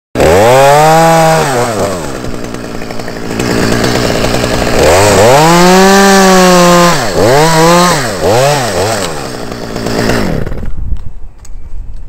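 Chainsaw revving hard several times, its pitch rising and falling as it cuts through an ash limb. A long high stretch in the middle is followed by a few short quick revs, and the saw goes quiet about ten and a half seconds in.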